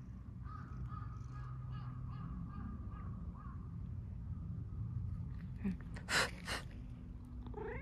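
A crow caws twice in quick succession about six seconds in, the two calls the loudest thing heard, over a low steady hum. Right at the end a cat begins to meow.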